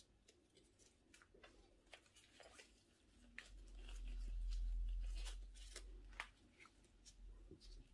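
Small clicks, crackles and rustles of a potted plant being handled over newspaper with gloved hands: leaves, soil and paper shifting. A low rumble swells and fades over about three seconds in the middle.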